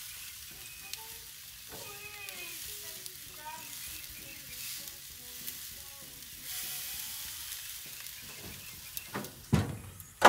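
Thick ribeye steaks sizzling steadily on hot charcoal grill grates. Near the end comes a sharp, loud metal clank as the grill lid is shut.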